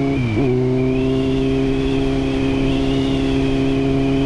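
Kawasaki Z750R's inline-four engine, fitted with a Shark aftermarket exhaust, under way: a moment in, the note dips sharply and recovers as in a quick gear change, then holds at a steady pitch.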